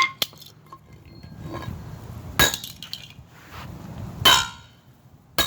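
Toy car being bashed: a few sharp, clinking metallic impacts, the loudest about four seconds in with a brief ringing tail, and small clicks and rattles between them.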